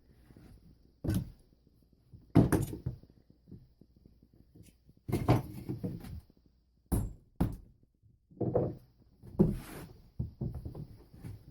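Irregular knocks and thuds of wood being struck and handled during demolition of an old window frame, about eight in all, some in quick clusters with quiet gaps between.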